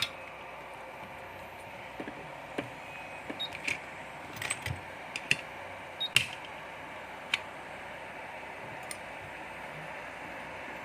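About a dozen light, sharp clicks and taps, scattered from about two seconds in to about seven and a half seconds in, over a steady hiss.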